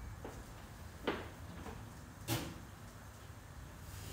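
Two short knocks about a second apart, the second louder: kitchen things being handled.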